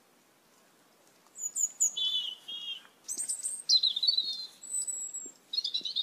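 Asian glossy starlings calling: a run of short, sharp, high-pitched squeaky notes in quick clusters, jumping between a very high pitch and a somewhat lower one, starting about a second and a half in.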